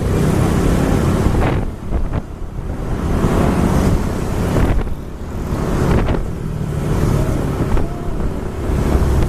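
Wind buffeting the microphone over the low rumble of engine and road noise from a vehicle moving at speed.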